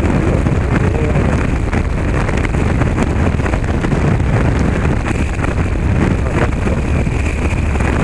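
Motorcycle riding over a cobblestone road: the engine runs under a steady rush of wind on the microphone, with many small ticks and knocks scattered throughout.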